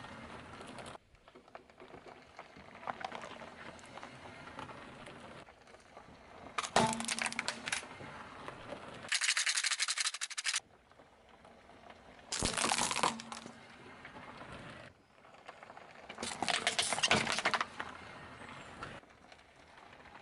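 A car tyre rolling slowly over small plastic objects on rough asphalt and crushing them: separate crunching, cracking bursts a few seconds apart, the loudest about seven, twelve and seventeen seconds in, with gritty tyre crackle between. About nine seconds in, the beads of a plastic abacus rattle densely for about a second and a half.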